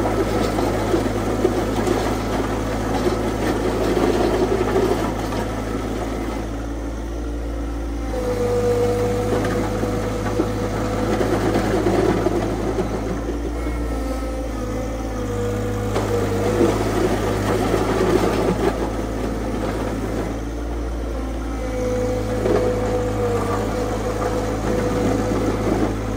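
Tractor engine running steadily under load while a loader-mounted box blade grades a gravel driveway. A steady high whine comes in about eight seconds in, drops away partway through, and returns near the end.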